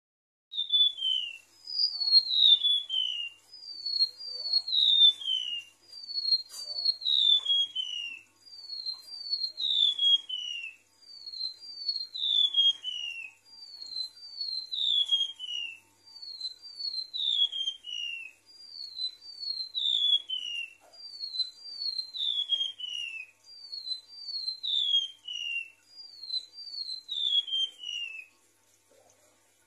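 Golden-bellied gerygone (remetuk laut) singing: high, thin whistled notes that each slide down in pitch, given in quick runs of two or three and repeated over and over. The song stops shortly before the end.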